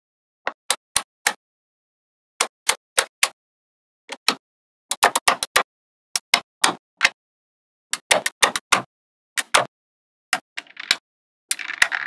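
Small neodymium magnetic balls clicking sharply as strips of them snap down onto other rows of magnet balls. The clicks come in quick clusters of a few, with silence between them, and a denser clatter of clicks near the end.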